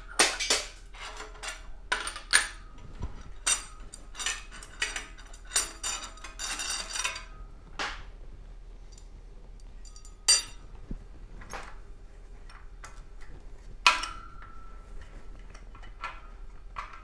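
Metal parts of a screw-type bushing puller (threaded lead screw, driver, receiver cup and washers) clinking and clanking against each other and the bare aluminium engine block as the tool is taken apart. There is a dense run of sharp clinks for the first several seconds, then a few single knocks; one of these, late on, rings briefly.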